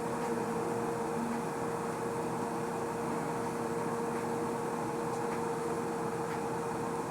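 Steady mechanical hum with a constant mid-pitched tone, unchanging throughout.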